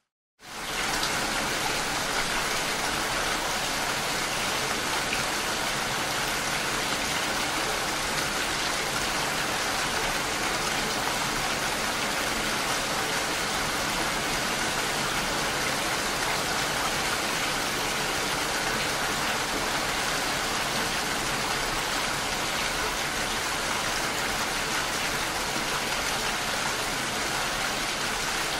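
Steady rain falling, an even, unbroken hiss of many drops. It starts abruptly a moment in, after a brief silence.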